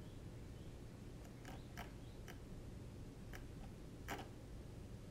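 Computer mouse clicking faintly: about half a dozen short, irregular clicks over a low steady hum.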